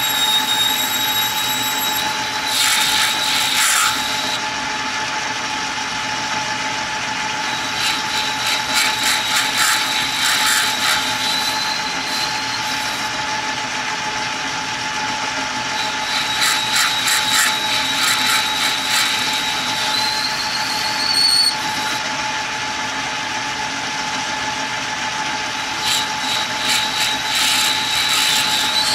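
Metal lathe running with a steady hum and a high whine while a tool bit turns a brass crown-wheel blank. The cut comes and goes four times as rapid rasping stretches of a few seconds each.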